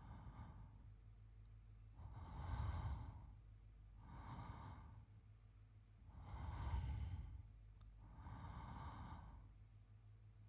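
A man's slow, even sleep breathing, in and out, one breath sound about every two seconds, the louder breaths alternating with softer ones.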